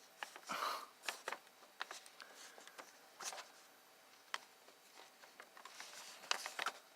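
Close handling noises: irregular small clicks, scrapes and rustles of fingers picking apart Play-Doh to dig out embedded BBs.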